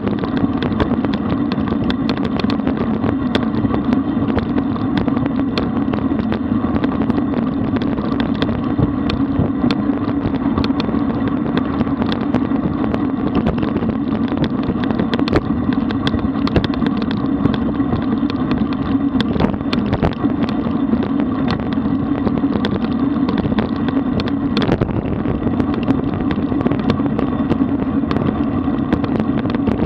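Road bicycle riding along at speed: a steady rumble of road noise with many small rattles and knocks throughout.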